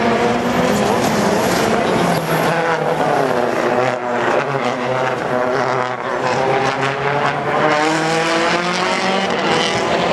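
World Rally Car's turbocharged four-cylinder engine revving hard, its pitch climbing and dropping several times as the car accelerates, shifts and lifts.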